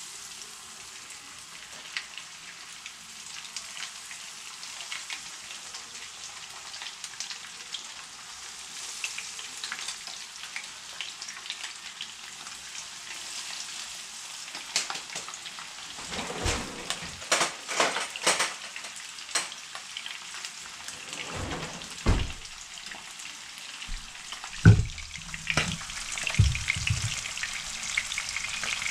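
Flour-coated whiting frying in oil in a pan: a steady sizzle with fine crackling. In the second half come several sharp knocks and clatters, the loudest a few seconds before the end.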